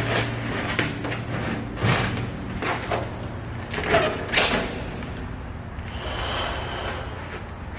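A person blowing up a large latex balloon by mouth: several breaths drawn in and puffs of air blown into its neck, about a second apart, then a longer, steadier blow.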